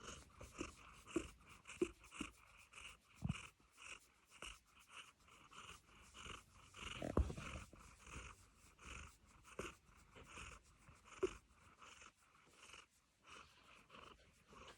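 Domestic cat making faint, rhythmic whimpering and panting noises, about two a second with a few small squeaks, a sign of her enjoying a head scratch.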